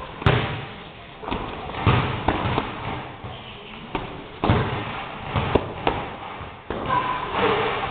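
Boxing gloves landing punches on the opponent's gloves and padded headgear during sparring: a string of irregular sharp thuds and slaps, some in quick pairs.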